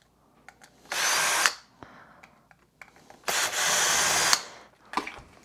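Cordless drill-driver running in two short bursts, about half a second and then about a second long, backing screws out of a Kirby Generation 3 vacuum's transmission housing. A few light clicks of handling come between the bursts.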